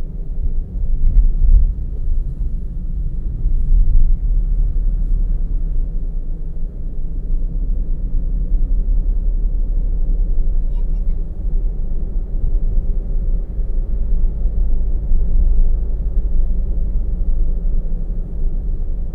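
Steady low rumble of a car driving on a road: engine and tyre noise picked up on board.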